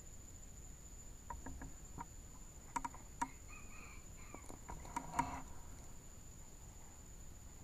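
A scatter of short, sharp clicks and taps, several in quick succession in the middle and the loudest two near the end of that run, from handling the scoped rifle as it is swung onto a new spot. A steady faint high-pitched whine runs underneath.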